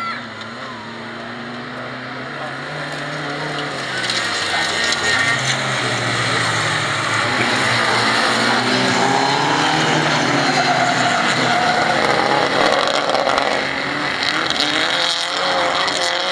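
Several folk-race saloon car engines revving hard on a gravel track, their pitch rising and falling as the cars drive through the corners, with tyre and gravel noise underneath. The sound grows louder as the cars come close, loudest in the middle.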